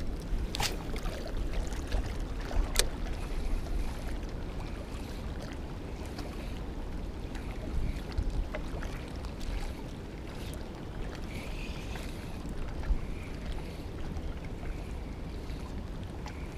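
Wind buffeting the microphone, a steady low rumble, with two sharp clicks in the first three seconds.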